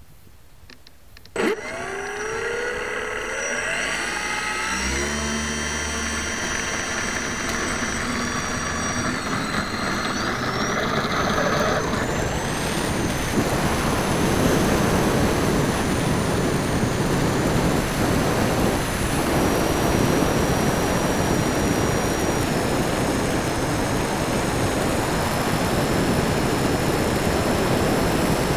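Propeller motors of a radio-controlled Transall C-160 model spinning up after a click about a second and a half in, their whine rising in steps as the throttle opens for the takeoff run. After that the motors run steadily at high power, with air rushing over the wing-mounted camera as the model climbs.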